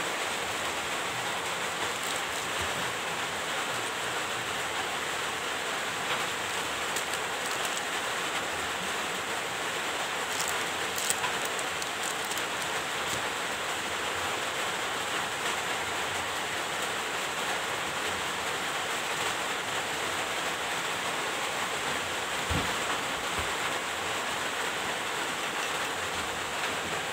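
Steady, even hiss, with a few faint clicks and taps as metal engine parts and plastic packaging are handled.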